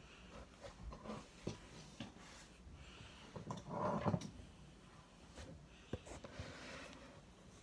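Plastic Transformers toy figures being handled and set down on a wooden tabletop: scattered light clicks and knocks, with a louder burst of rubbing and knocking about four seconds in.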